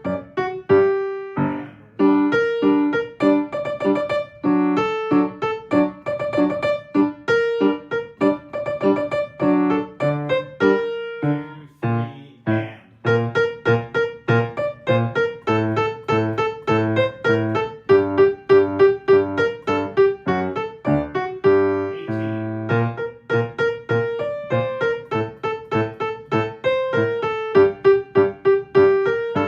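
Piano playing the soprano line of a choral arrangement, a steady run of notes with lower chords beneath, at a slowed practice tempo.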